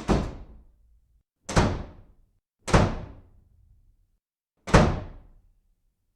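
Four heavy thuds at uneven intervals, each dying away within about a second.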